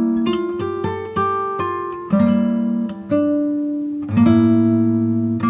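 Background music: an acoustic guitar playing plucked notes and chords, each struck and left to ring out before the next.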